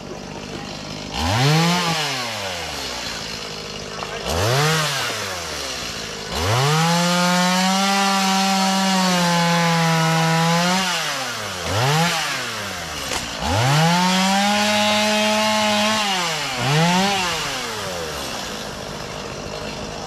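Two-stroke chainsaw cutting the limbs of a fallen breadfruit tree. The engine revs up and drops back to idle several times, and twice it holds at full throttle for a few seconds while cutting through the wood.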